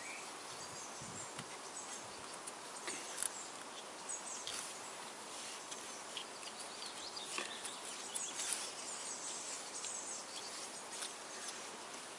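Birds chirping over a steady outdoor background hiss, with a few light clicks and rustles of hands handling an engine wiring harness and its tape tags.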